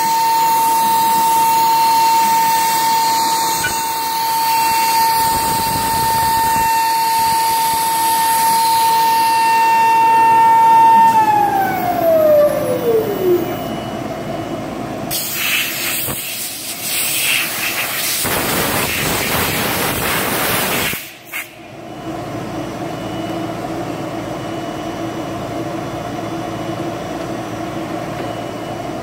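CNC router spindle whining at a steady pitch as it cuts, then winding down with a falling whine about eleven seconds in. Afterwards a loud rushing noise, cut off briefly and suddenly, gives way to a steady hum.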